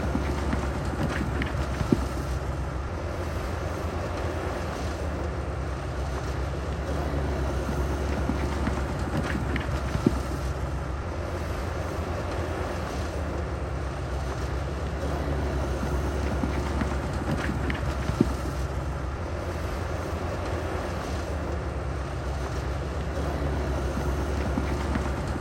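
Bulldozer's heavy diesel engine running steadily, with three short sharp knocks about eight seconds apart.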